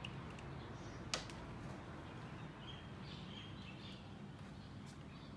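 Low steady room hum with one sharp click about a second in as a USB charging cable is plugged into a smartphone, and a few faint high chirps around the middle.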